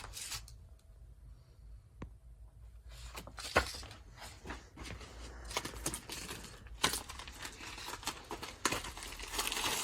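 Plastic garment packaging crinkling and rustling as pyjama sets are handled, with a few sharp snaps and clicks. It is quieter for the first few seconds and busier in the second half.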